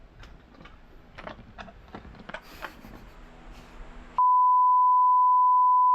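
Faint scattered clicks and light knocks of metal fork parts being handled. About four seconds in, a loud, steady, single-pitch beep starts and holds: an edited-in censor bleep.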